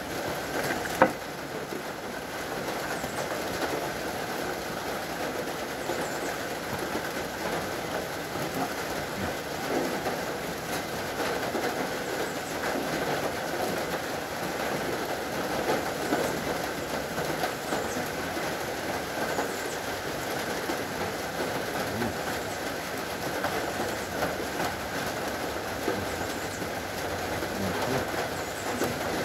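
Steady rain on the roof, with small rustles and clicks from cracker packets and a knife being handled. One sharp knock about a second in.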